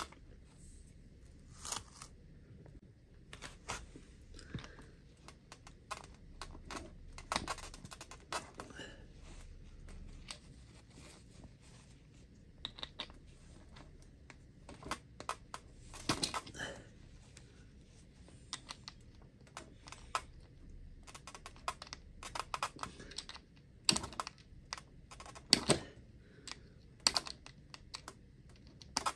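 Irregular clicks, taps and light rubbing from hands handling a radio-controlled rally car's wheels and rubber tires. The sharpest click comes right at the start, and the clicks bunch up again near the end.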